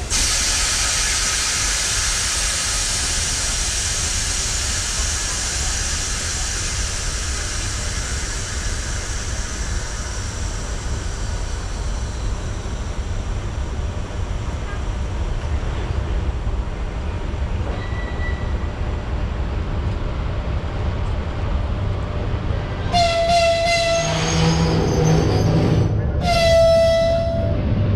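EP1M electric locomotive running in slowly at the station with a low rumble, sounding its horn in two blasts near the end, the second one louder. A high hiss fades out over the first several seconds.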